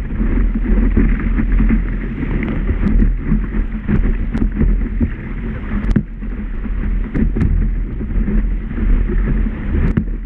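Whitewater roaring and splashing around a kayak in a big rapid, heard from a camera mounted on the boat's bow, dull and heavy in the low end. A few short sharp splashes stand out from the steady rush.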